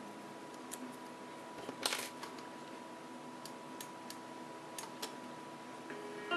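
Small clicks and taps of a SIM card and iPhone SIM tray being handled, with the card pressed out of one tray and into another. A cluster of clicks about two seconds in is the loudest, followed by a few scattered light ticks.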